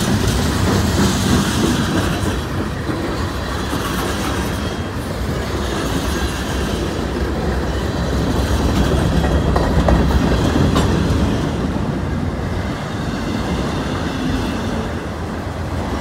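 Freight train cars rolling past: a steady rumble of steel wheels on the rails, with a few sharp clicks along the way.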